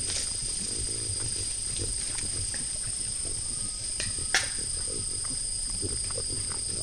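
White-lipped peccaries feeding: scattered chewing, crunching and low grunts, with one sharp click a little past four seconds in. A steady high hum runs underneath.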